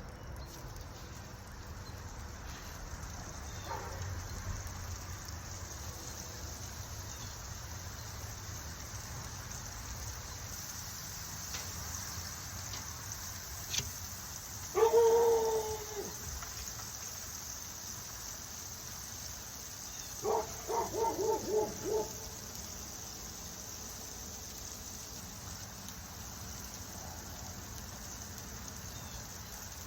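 A dog gives one short whine or bark about halfway through, then a quick run of yips about two-thirds of the way in, over a steady high-pitched hiss.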